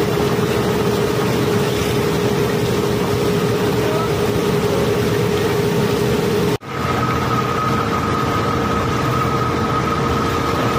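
Steady din of barge-unloading machinery and cobblestones pouring down a steel chute, with a low steady hum. About two-thirds of the way through it cuts off abruptly and gives way to a similar steady machine noise carrying a higher, thin whine.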